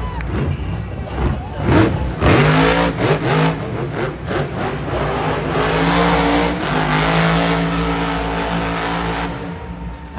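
Grave Digger monster truck's supercharged V8 engine revving hard, its pitch sweeping up and down several times as it accelerates, then holding steady under load for a few seconds before easing off near the end.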